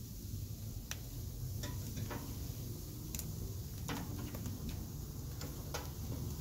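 Metal grill tongs clicking against the wire grate and the meat as slices of marinated beef are turned on a charcoal grill: scattered sharp clicks, several a few seconds apart, over a steady low rumble.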